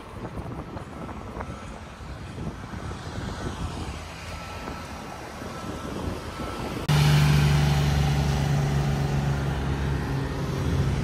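City street traffic: cars passing with a low rumble. About seven seconds in, the sound jumps suddenly to a louder, steady low hum that holds to the end.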